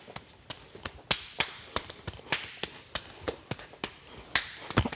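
A quick run of sharp slaps and smacks, about three or four a second and unevenly spaced: hands striking and blocking in close-quarters sparring.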